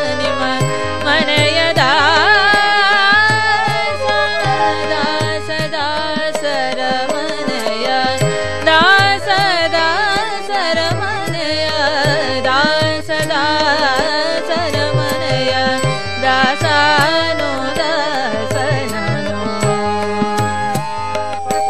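A woman singing a Kannada devaranama (devotional song) in light classical style, in long, heavily ornamented melodic runs, over steady tabla accompaniment.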